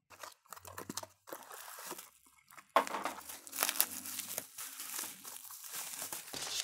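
A parcel being unwrapped by hand: scattered rustling of cardboard and tape, then a sudden rip about three seconds in, followed by steady crinkling of bubble wrap as it is pulled off a foam box.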